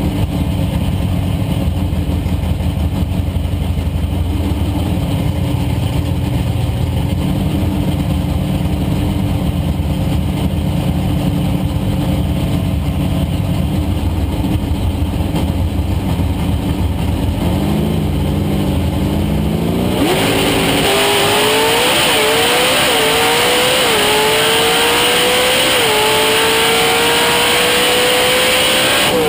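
AMC Gremlin drag car's engine, heard from inside the cockpit, idling at the starting line, with a short rev about 18 seconds in. Then comes the full-throttle launch: the engine note climbs and dips briefly at each of several gear changes down the quarter mile, and falls as the throttle is lifted at the very end.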